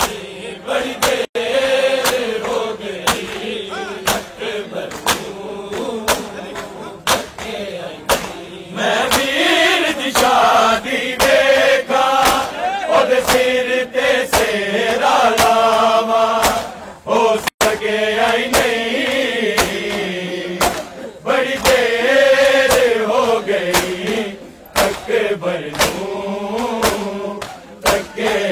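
Men chanting a noha, a Shia mourning lament, over the rhythmic slapping of a crowd beating their chests in matam, about three slaps every two seconds.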